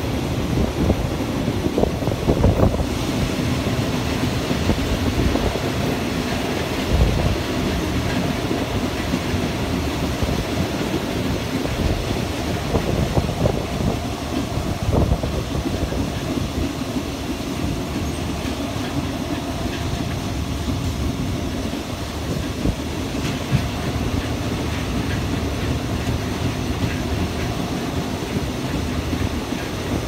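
Thai passenger train heard from an open carriage window: a steady low rumble with a few short clanks in the first half.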